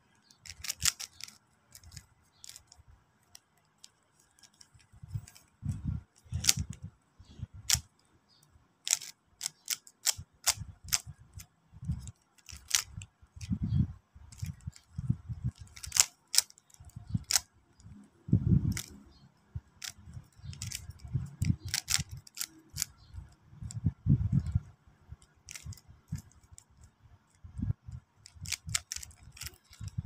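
A 3x3 Rubik's cube being turned by hand during a speed solve: irregular sharp plastic clicks as the layers are twisted, with dull low thumps now and then from handling.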